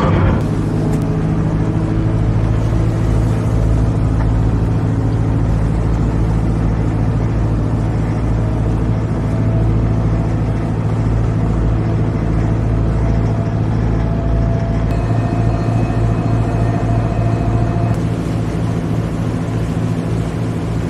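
Car ferry's diesel engine running steadily under way, a deep, even drone with a faint higher whine above it, as the ferry pulls away from the quay and out into open water.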